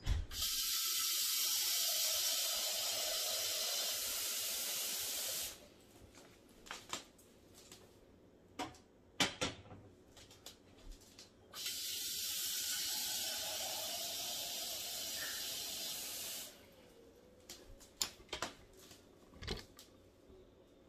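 Kitchen sink faucet running water into a stainless steel pot, twice, each for about five seconds, with a few short knocks from the pot being handled in between.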